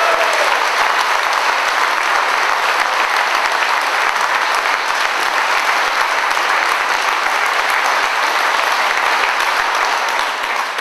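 A large crowd applauding steadily, greeting a speaker who has just been introduced; the clapping dies away near the end.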